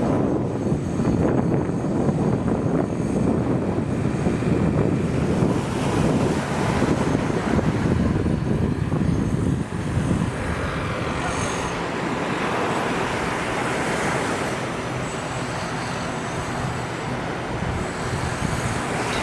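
Wind buffeting the camera microphone with low rumbling over surf washing onto the beach. About halfway through the rumble eases and the steady hiss of the waves comes forward.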